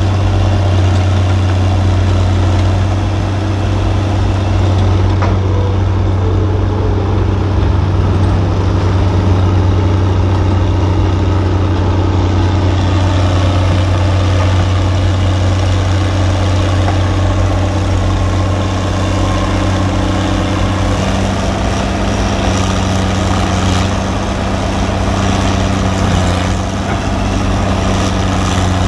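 A large engine idling steadily, a deep, even drone.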